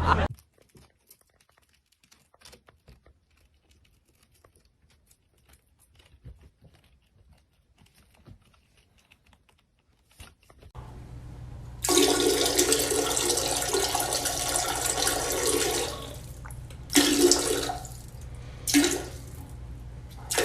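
Near silence with a few faint clicks for about ten seconds. Then a low steady hum comes in, and from about twelve seconds a loud rushing noise like running water lasts about four seconds, followed by two short bursts of the same noise.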